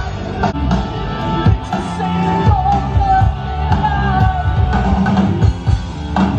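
Rock music with a singing voice and a steady drum beat.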